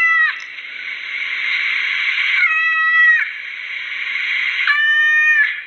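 A cat meowing three times, each call holding a steady pitch and dropping at the end, over a steady hiss.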